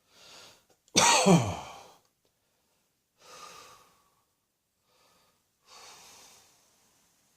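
A person's single loud, harsh cough about a second in, its voiced tail falling in pitch, with quieter breaths in and out before and after it.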